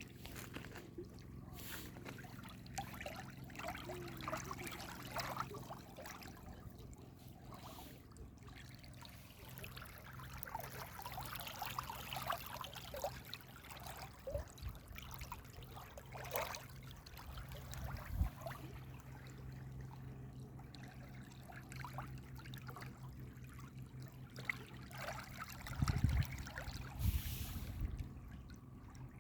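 Water trickling and splashing in a small stream, with a few low thumps near the end.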